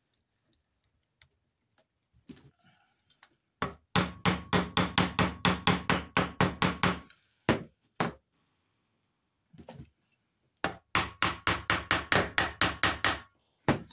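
A mallet rapidly tapping a part into the metal frame of a crossbow being assembled, in two quick runs of about five or six blows a second with a few single taps between. The frame rings with each blow.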